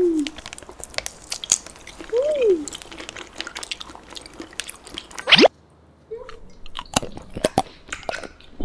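Close-miked mukbang eating sounds: wet biting and chewing of a soft jelly candy, full of sharp squishy smacks and clicks, with two short hummed "mm" tones near the start. A brief rising swoosh about five seconds in, then more chewing.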